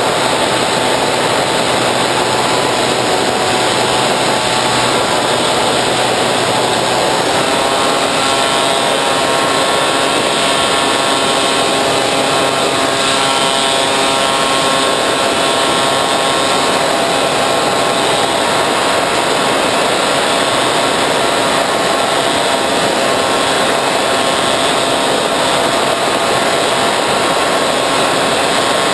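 Bixler 3 RC plane's electric pusher motor and propeller running steadily in flight, heard from the onboard camera under loud, steady wind rush. The motor's pitch rises a little about seven seconds in, a throttle change.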